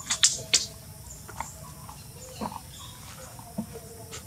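Baby monkey giving short, sharp, high-pitched squeaks: three close together right at the start, then a few fainter ones spaced out after.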